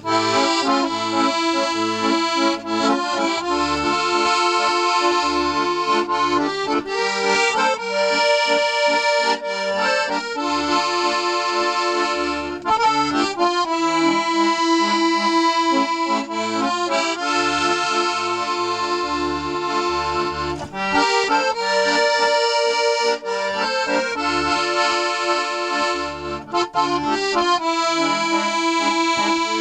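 A freshly restored 72-bass Stefanelli accordion playing an Israeli folk tune: a right-hand melody over short, rhythmic left-hand bass notes and chords.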